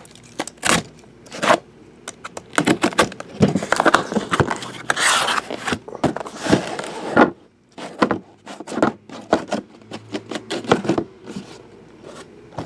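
Cardboard trading-card boxes being handled and set down on a table: a series of light knocks and taps, with a longer rustling scrape about five seconds in.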